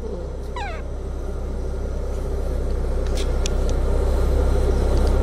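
Car engine and road noise heard inside the cabin: a steady low rumble growing gradually louder. About half a second in, a baby monkey gives one short falling squeak.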